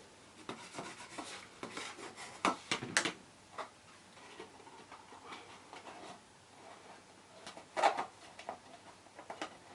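Hands handling and rubbing down glued card stock on a paper box: quiet paper rubbing and rustling, with a few light taps and knocks, the loudest about eight seconds in.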